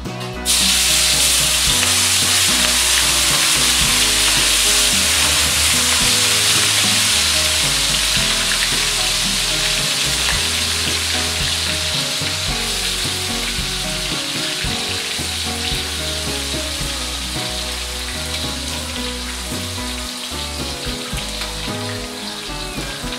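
Marinated shrimp dropped into hot oil in a stainless steel wok: a loud sizzle starts suddenly about half a second in, then slowly dies down as the shrimp fry.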